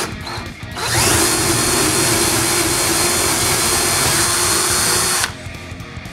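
Cordless drill with a twist bit boring through a wooden board. The motor spins up about a second in, runs steadily under load for about four seconds, then stops abruptly.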